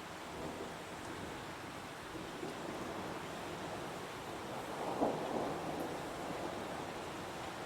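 Heavy rain falling steadily in a forest, an even hiss, with a brief louder swell about five seconds in.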